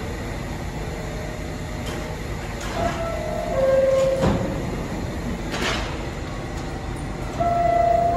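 New York City Subway train moving along the express track in a station: a steady rumble with scattered sharp clacks of wheels over rail joints. A high, steady whine comes in about three seconds in and again louder near the end.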